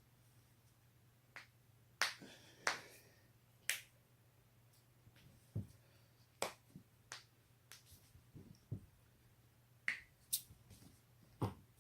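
Joints being cracked by hand: a string of sharp pops, a dozen or more at uneven intervals, the loudest two about two and three seconds in. A faint steady low hum runs underneath.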